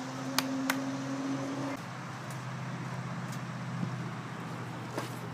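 Steady low hum of a running engine, with one of its tones cutting off about two seconds in. A few sharp knocks cut through it: two close together near the start and one near the end.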